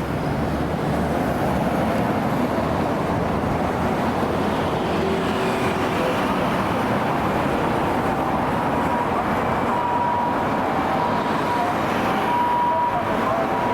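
Steady road traffic noise. About eight seconds in, an ambulance's two-tone high-low siren comes in faintly and grows a little stronger toward the end.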